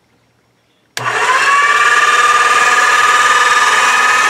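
Motorized pasta machine starting up about a second in and running steadily with a whine, rolling a sheet of polymer clay through its rollers.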